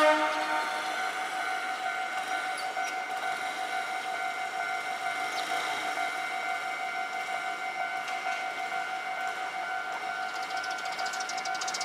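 Level-crossing warning alarm ringing steadily in a rapidly repeating electronic tone, as the crossing signals for an approaching train. In the first second, the tail of a train horn fades out.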